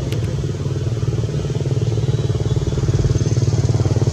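A small engine running steadily with a fast, even pulse, getting a little louder near the end.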